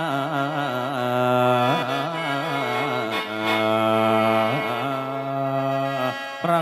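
Mor lam music: a long, ornamented sung line that wavers and glides over the steady drone of a khaen (Lao/Isan bamboo mouth organ), with a short break near the end.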